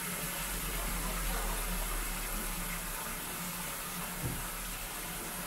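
Tap water running steadily, rinsing a fish as it is cleaned.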